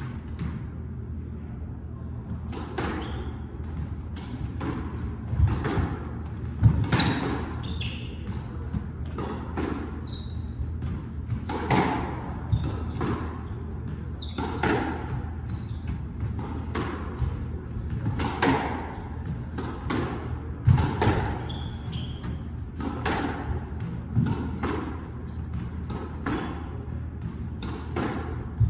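Squash rally: the ball struck by rackets and hitting the court walls in an irregular run of sharp knocks, several each few seconds.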